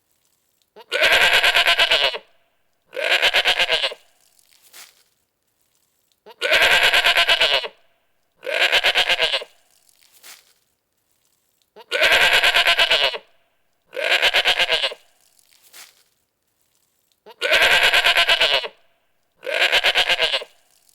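Goat bleating in pairs: a long quavering bleat of about a second and a shorter one right after, the same pair coming back four times about every five and a half seconds, with faint short bleats in between.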